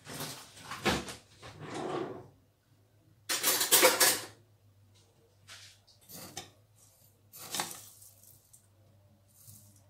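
Kitchen utensils clattering off-screen: a metal spoon and containers knocking and clinking in several separate bursts, the loudest about three to four seconds in, as dried coriander seeds are scooped out. A low steady hum runs underneath.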